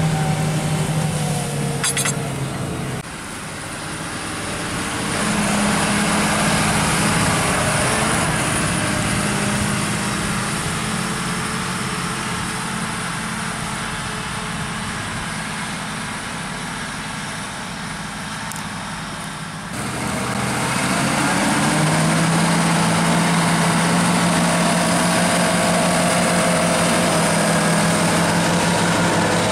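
John Deere 8R-series tractor diesel engines running under load, pulling mounted reversible ploughs through the soil. The engine sound swells about five seconds in and slowly fades, then cuts to another tractor pulling steadily and louder from about twenty seconds in.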